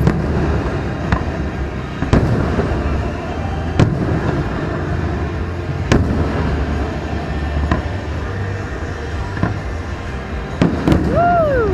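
Distant aerial fireworks bursting: about seven sharp booms, irregularly spaced one to two seconds apart, over a steady low rumble. A short falling tone comes near the end.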